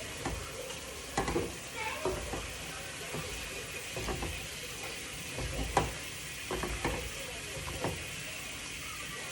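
Soup base of chicken, salchichón and sofrito sizzling in a hot pot, with a steady hiss, while a spoon stirs it and knocks against the pot several times.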